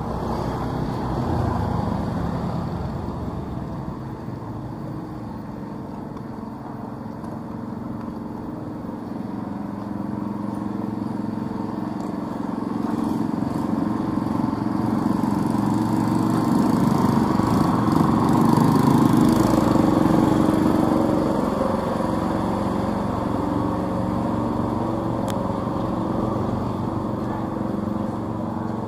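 Small motorcycle engines running on a street, one growing louder and passing close about two-thirds of the way through, then fading.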